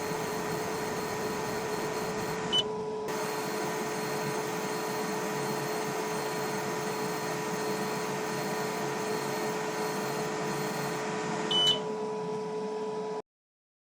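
xTool F1 Ultra fiber laser engraver running with a steady hum and fan hiss and several fixed whining tones. Two short high beeps sound, about two and a half seconds in and near the end, and the sound cuts off suddenly shortly before the end.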